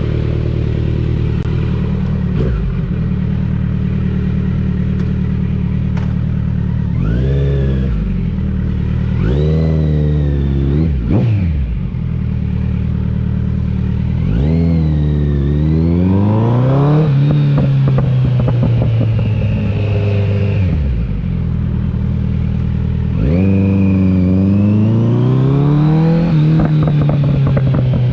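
2021 Kawasaki Z900's 948 cc inline-four, breathing through a CS Racing aftermarket exhaust with upgraded headers and an ECU tune, idling steadily and then revved: three quick blips about seven to eleven seconds in, then two longer revs that climb, hold and fall back to idle.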